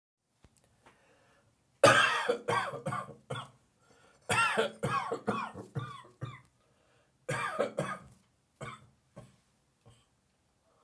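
A person's dry cough, coming in three fits of rapid coughs in a row, the middle one the longest, then tailing off into a few single coughs.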